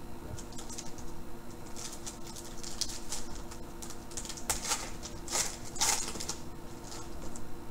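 Foil wrapper of a 2013 Panini Prizm Baseball card pack being torn open and crinkled by hand: a run of crisp crackles, loudest about four and a half to six seconds in.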